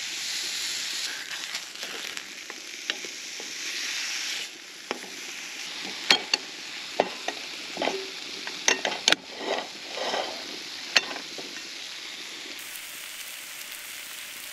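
Steak sizzling in a non-stick frying pan on a grill over a wood fire. The sizzle drops in level about four seconds in, and sharp clicks and pops come between about six and eleven seconds in.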